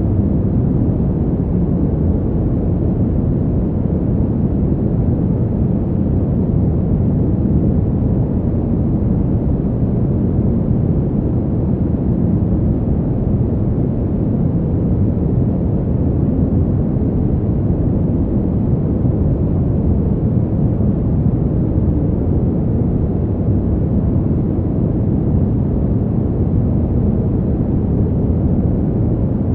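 Fan heater's blower running continuously: a steady, deep rushing noise with no change in level.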